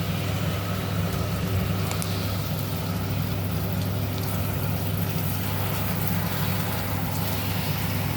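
Shower spray running steadily, with a constant low hum underneath.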